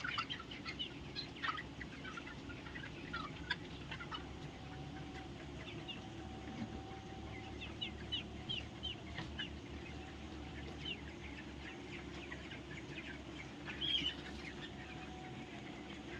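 A flock of chickens calling, with many short, high chirps overlapping and a louder burst of calls about fourteen seconds in, over a steady low hum.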